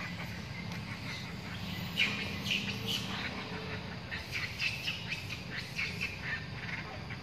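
Rapid runs of short, high-pitched squeaky calls, coming thick from about two seconds in, over a steady low hum.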